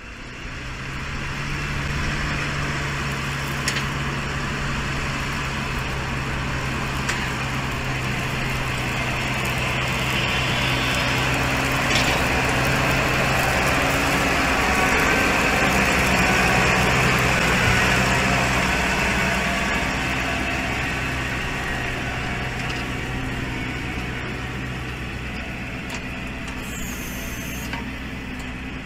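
Electric kindling-cutting machine running: a steady motor hum under the hiss of its saw cutting boards into sticks as the rubber feed wheel pulls them through. The cutting noise grows louder through the middle and eases off toward the end.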